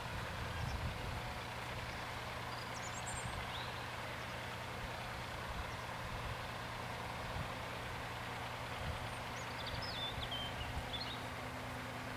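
A steady low hum under constant outdoor background noise, with a few short bird chirps about three seconds in and again near the end.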